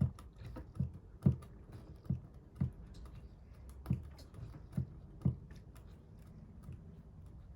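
Primer bulb of a Husqvarna 346XP chainsaw being pressed repeatedly to prime the carburettor before a start, a series of about eight to ten short clicks at uneven intervals that stop about five and a half seconds in.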